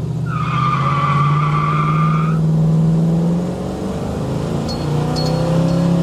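1971 Plymouth Satellite's V8 under full-throttle acceleration, heard from inside the cabin, with the rear tyres squealing in wheelspin for about two seconds near the start. About three and a half seconds in, the engine note drops away briefly as the automatic gearbox is shifted by hand, then the revs climb again.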